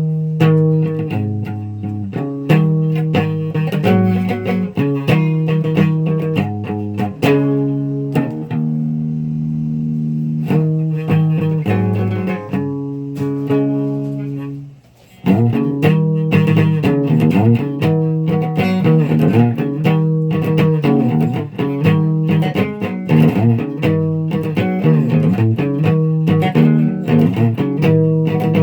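Guitar being played: plucked notes and held chords, with a brief stop about halfway through before the playing starts again.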